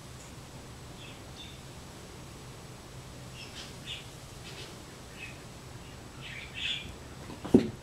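Short, high-pitched animal squeaks and chirps, a few at a time, coming every second or so, with one sharp loud knock about seven and a half seconds in.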